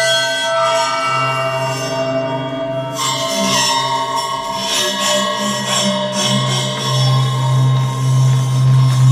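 Forged steel 'Portuguese man-of-war' sound sculpture being played: layered metallic tones ringing on like bells and gongs, with a fresh set of strikes about three seconds in and a deep hum swelling near the end.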